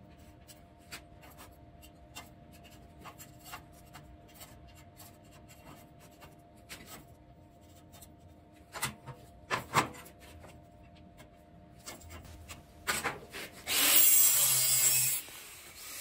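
Light taps and scrapes of hand tools on a steel frame, with a few louder metal knocks about nine to ten seconds in. About two seconds before the end, an angle grinder starts with a high whine, runs for about a second and winds down.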